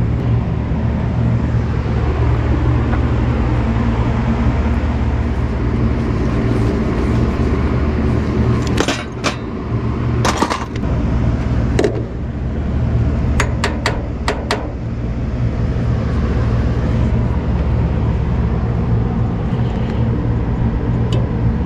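Metal hand tools clinking and clanking in a metal cantilever toolbox as they are rummaged through, with a few sharp knocks around the middle and a quick run of clinks a little later, over a steady low mechanical hum.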